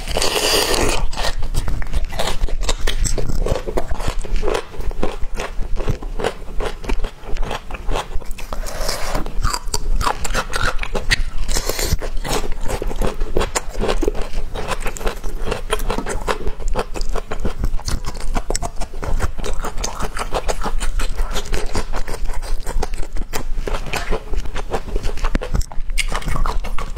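Close-miked biting and crunchy chewing of a bamboo shoot, with its fibrous layers pulled apart by hand between bites. Dense crisp crackles throughout, the loudest a bite right at the start.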